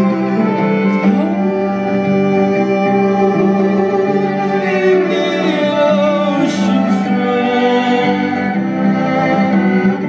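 Live amplified bowed violin: sustained notes layered over a steady low drone, with some sliding pitches.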